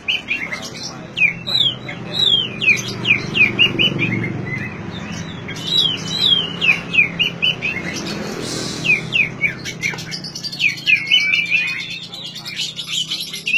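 Oriental magpie-robin (kacer) singing: a fast, continuous run of short sweeping whistled notes, with a steady low hum underneath.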